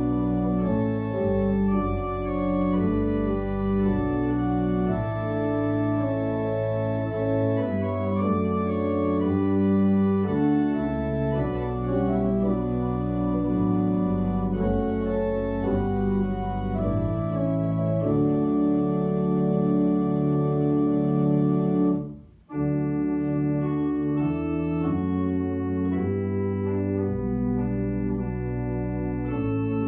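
Organ playing a hymn tune in held chords that change step by step, with a sudden short break about two-thirds of the way through.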